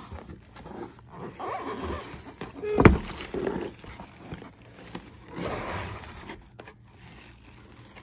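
Cardboard rustling and scraping as hands dig into a shipping carton and pull at the boxed toy set inside, with one sharp knock about three seconds in.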